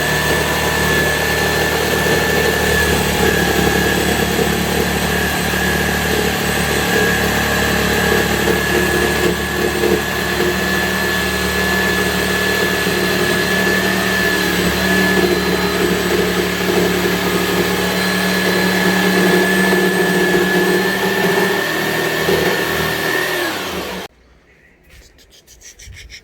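Electric router running steadily with a constant high whine while cutting board for a speaker box; near the end the whine sags slightly in pitch and then the sound stops abruptly.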